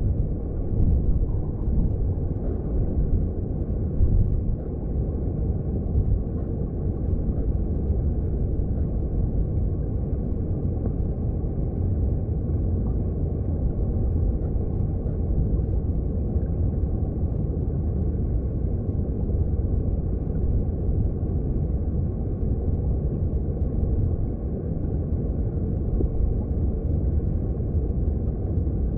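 Underwater sound of a mountain stream, heard through a hydrophone: a steady, deep rumble of flowing water.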